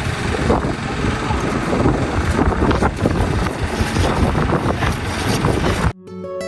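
Loud rushing wind noise buffeting the microphone, which cuts off abruptly near the end as plucked-string background music begins.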